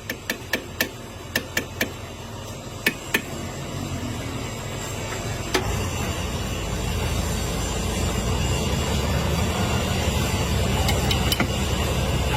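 A quick series of sharp metal taps, like light hammer blows on metal, then a machine starts a steady low running hum that grows louder.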